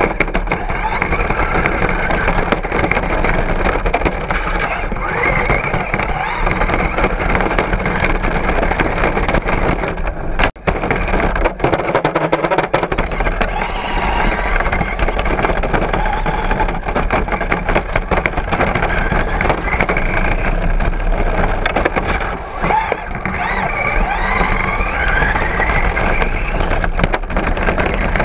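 Onboard sound of a Traxxas Rustler VXL RC truck driving hard on sand: the brushless motor's whine rising and falling with the throttle over a dense rush of tyre and sand noise. The sound cuts out briefly about ten seconds in.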